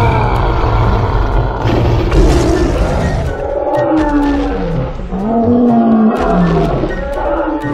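Cartoon monster roars and growls: several drawn-out calls that bend up and down in pitch. A burst of noise comes about two seconds in.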